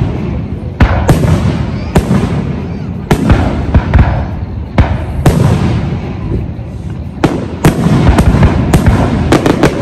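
Aerial fireworks display: shells bursting one after another, with sharp bangs every half second to a second over a continuous low rumble, and a quick cluster of bangs near the end.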